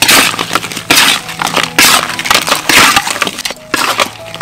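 A metal spatula stir-fries crab pieces and green onions in a hot wok, sizzling and scraping in loud crackling bursts about once a second.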